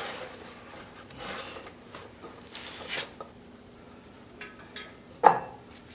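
Lifting gear being handled and rigged on a machine: rasping, rubbing and scraping sounds, then one sharp knock about five seconds in.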